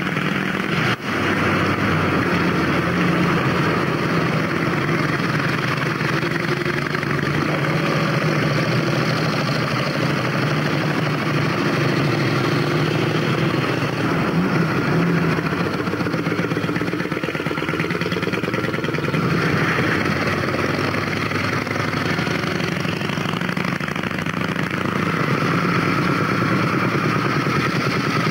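Vintage motorcycle engines running near idle, their pitch rising and falling as machines move off and pass. There is a short dropout about a second in.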